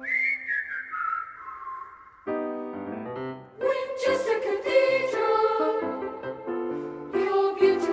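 Background music: a whistled melody gliding downward, then piano notes from about two seconds in, with voices joining into a fuller texture midway.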